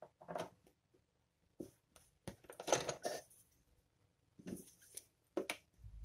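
Handling noise of souvenir fridge magnets: a few short rustles and light clicks as one magnet is taken away and the next is picked up, the longest and loudest cluster about halfway through.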